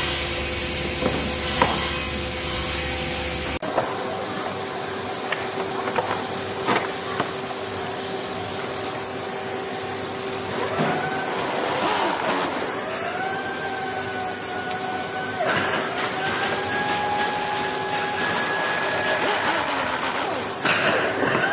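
Woodworking-shop noise: a steady machine hum and scattered knocks of wooden parts. About halfway through, a handheld power drill spins up and runs at a steady whine for several seconds, twice with a short break.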